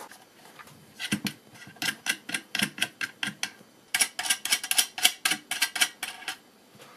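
Rapid sharp clicks and light knocks of small hard parts being handled on a workbench, in two runs: one starting about a second in, and a denser one around the middle.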